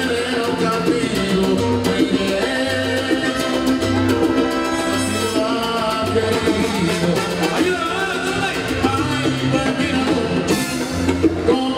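Live salsa band playing, with trombones, congas and timbales over a repeating bass line, and a male lead singer singing.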